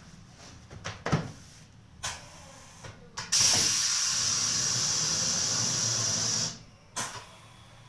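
Pneumatic screen-printing machine for PP bags cycling: a few sharp clicks and knocks, then a loud, steady hiss of compressed air for about three seconds as the screen frame comes down and the air-cylinder squeegee makes its print stroke, ending with a short puff of air near the end.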